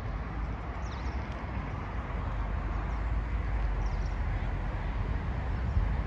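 Outdoor ambience: a steady low rumble with a few faint, high bird chirps.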